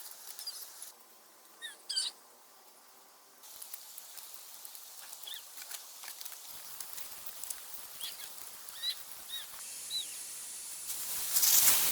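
Bamboo poles rubbing and scraping together as they are lashed with rattan rope, loudest near the end, with scattered short high chirps.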